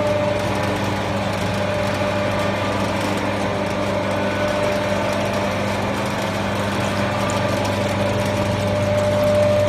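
Small automatic screw oil press running while pressing oil: a steady motor hum with a constant higher whine.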